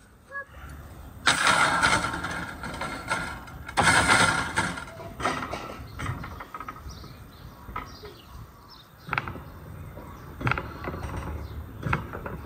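Close handling noise: two loud scraping, rustling sounds in the first few seconds, then quieter fumbling with a few sharp light knocks as peeled bananas are laid on a wire grill rack.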